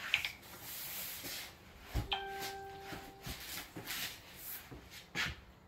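Tall flat-pack cardboard furniture boxes being shifted upright against a wall: scuffs, rubs and bumps of cardboard. About two seconds in, a knock sets off a single ringing tone that lasts about a second and stops suddenly.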